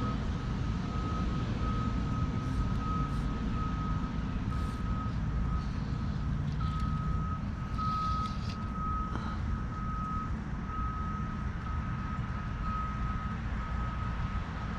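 A high electronic-sounding beep repeating evenly a little under twice a second, like a vehicle's reversing alarm, over a steady low rumble.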